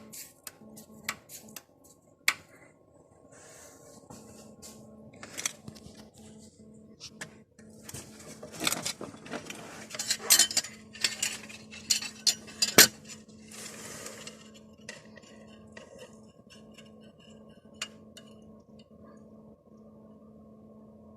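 Irregular metallic clicks and clacks of worn pistons being rocked by hand in the cylinder bores of a Skoda 1.4 petrol BKY engine. The slack of the heavily worn pistons lets them knock against the cylinder walls.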